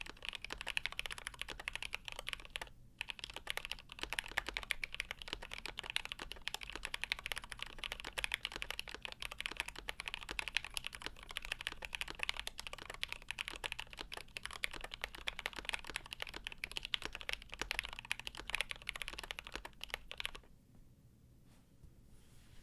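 Fast, continuous typing on a GMMK Pro mechanical keyboard with lubed milky Gateron Yellow linear switches in an aluminium plate, a steady stream of key clacks. There is a brief pause about three seconds in, and the typing stops about two seconds before the end.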